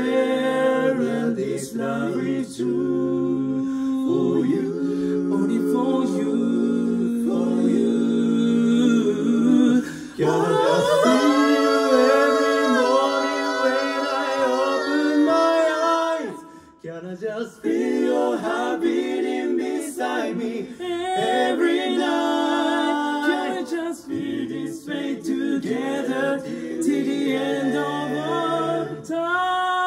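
Four-part male barbershop quartet singing a cappella in close harmony, holding sustained chords. The singing drops out briefly about sixteen seconds in, then resumes.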